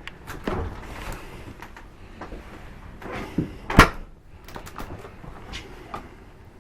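Doors of a Dometic gas-electric RV refrigerator and freezer being opened and shut: a series of clicks and knocks, the loudest a sharp knock about four seconds in.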